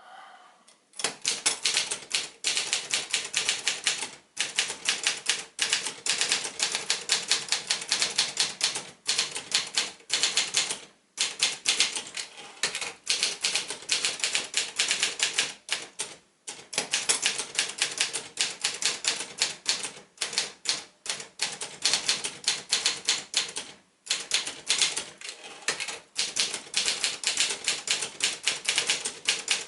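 1971 Sears Achiever portable typewriter, a Brother-built JP7, being typed on quickly. Rapid key strikes start about a second in and run on, broken by a few short pauses.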